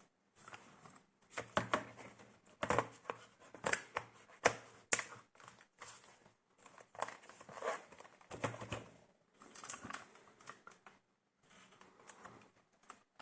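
Irregular sharp clicks, taps and scraping of hands handling a laptop's plastic parts and components, with rustling in between.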